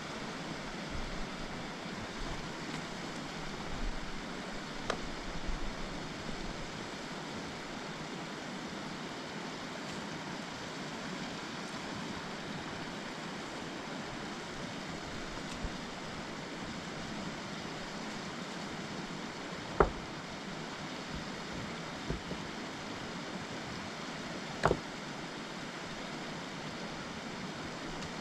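Steady rushing background noise with a few isolated sharp knocks, the loudest about two-thirds of the way through.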